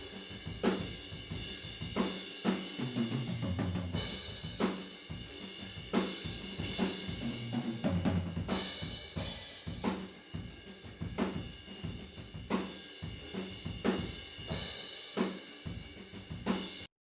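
Acoustic drum kit played in a steady groove: kick drum, snare hits, hi-hat and cymbals. It stops abruptly near the end.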